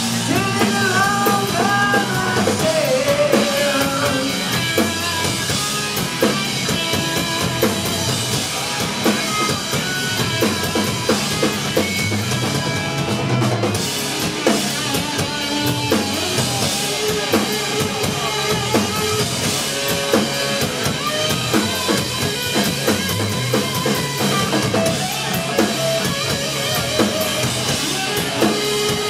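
Live rock band playing a song: drum kit with kick and snare keeping a steady beat under electric guitars and bass guitar, heard from the audience in a small club.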